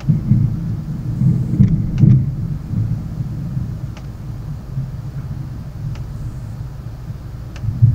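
Rolling thunder: a low, uneven rumble that swells twice in the first couple of seconds and then eases off, with a few faint clicks here and there.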